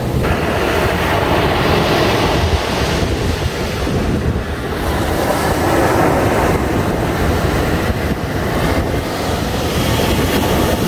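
Big waves breaking and rushing up a beach in a rough sea, a continuous roar of surf, with strong wind buffeting the microphone.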